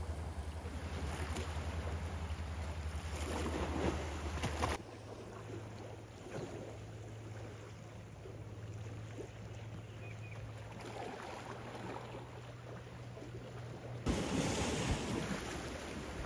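Sea waves washing against a rocky shore, with wind rumbling on the microphone. It drops abruptly to a quieter wash about five seconds in and comes back up near the end.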